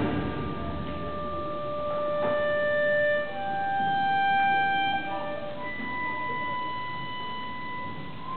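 Symphony orchestra playing classical music. The full orchestra drops away at the start, leaving a solo woodwind line of three long held notes, each higher than the last, over quiet accompaniment.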